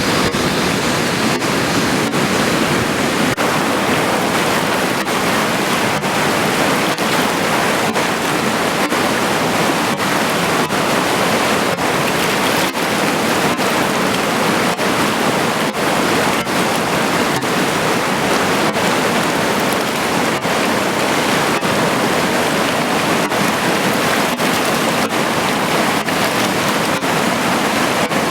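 Kunhar River rushing: a steady, loud roar of fast mountain water with no change in level.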